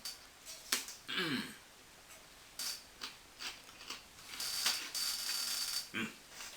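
Crunching and clicking from a crunchy biscuit being bitten and chewed, with a longer hiss near the end.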